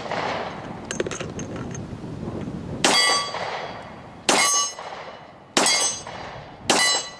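Four shots from a straight-blowback Hi-Point pistol converted to 10mm, fired about a second and a half apart starting about three seconds in. Each shot is followed by a metallic ringing clang that dies away.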